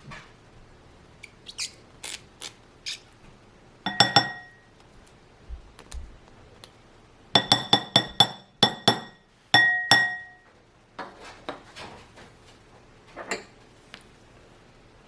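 A utensil clinking against a bowl in a run of strikes that ring briefly. The loudest are a cluster about four seconds in and a quick series of about six clinks around the middle, with lighter taps and scrapes between them.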